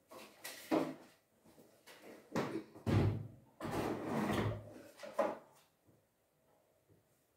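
Kitchen drawers and cupboard doors being opened and closed: a run of knocks and sliding rubs, with the longest slide about four seconds in.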